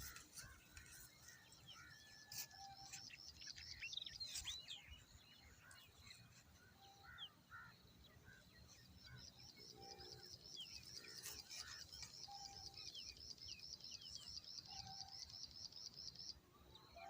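Faint birdsong: scattered high chirps and a short, lower call repeating every couple of seconds, with a fast, high trill running for several seconds in the second half.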